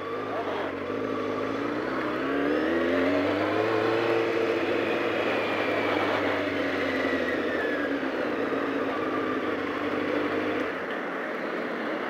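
Honda CBR600 F4's inline-four engine pulling away: its note rises over a few seconds, holds, then falls as the bike slows, with wind noise over it. Near the end the engine note drops away and the overall level falls.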